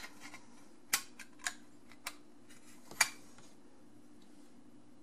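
Small metal and plastic parts of a dishwasher's wiring junction box clicking and tapping as the cover is fitted back together: a handful of sharp clicks, the loudest about three seconds in, over a faint steady hum.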